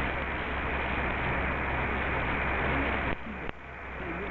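Medium-wave AM reception on 1680 kHz through a web SDR receiver: steady static hiss with a faint, weak signal wavering underneath. About three seconds in the level drops suddenly, there is a click, and then it builds back up.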